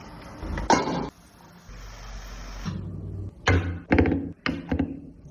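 A single sharp knock a little under a second in, then a quick run of four or five knocks and clatters near the end, over a low steady hum.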